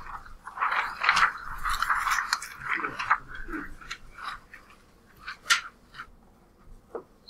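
Paper rustling and crinkling as worksheet pages are turned, dense for about three seconds and then thinning to scattered clicks and taps.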